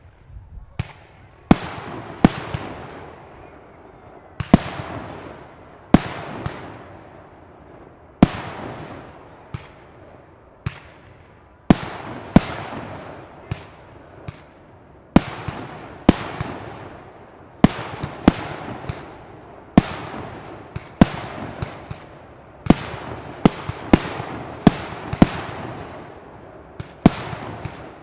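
Fireworks display: a run of loud, sharp bangs from aerial shells, roughly one a second with uneven gaps, each trailing off in a long rolling echo.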